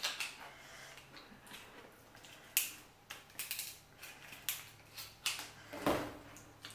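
Kitchen scissors cutting through cooked lobster shell: scattered sharp cracks and clicks, then a louder knock near the end as the scissors are set down on the table.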